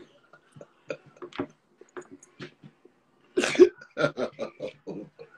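A man laughing hard in short bursts, with a loud cough-like outburst about three and a half seconds in, followed by quick pulses of laughter.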